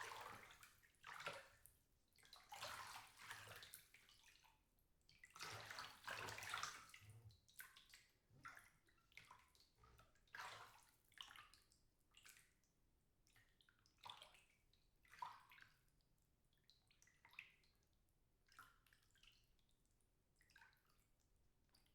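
Birds splashing as they bathe in a shallow birdbath: several longer bursts of splashing in the first seven seconds, then shorter, lighter splashes and flicks of water about once a second.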